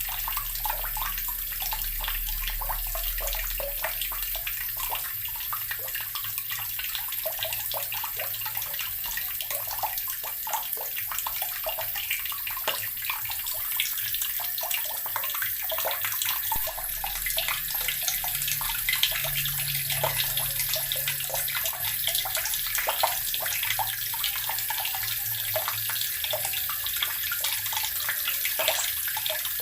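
Water running from a tap into an earthen barrel, splashing and gurgling steadily into the water below.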